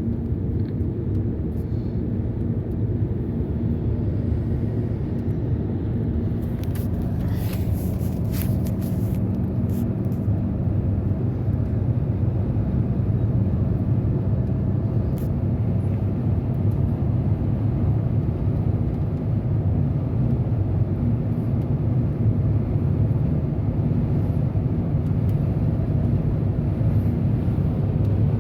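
Steady road and engine noise from inside a moving car's cabin: a low rumble with a faint hum, and a brief hiss about seven seconds in.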